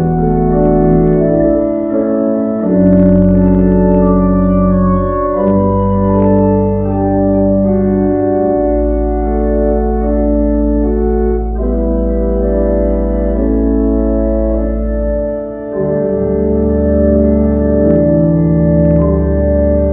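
Organ playing slow, sustained chords over long held bass notes, the closing music of a church service.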